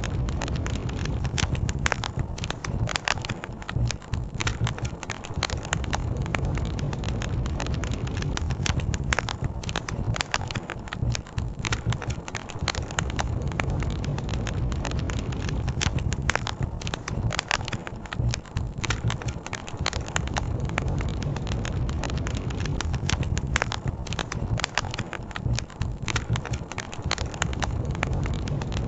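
Wood campfire crackling, with frequent sharp pops and snaps at irregular intervals over a steady low rushing of river water.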